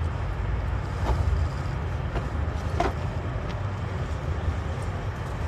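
Steady low rumble of nearby road traffic and wind on the microphone, with a few short clicks, the sharpest nearly three seconds in.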